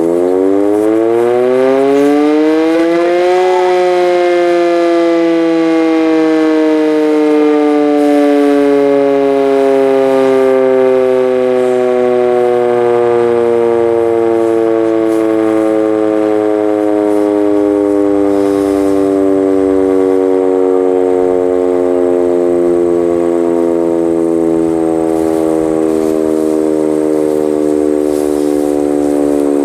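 Sentry 14V outdoor warning siren sounding a loud wail. Its pitch climbs for the first few seconds, then falls slowly and steadily through the rest.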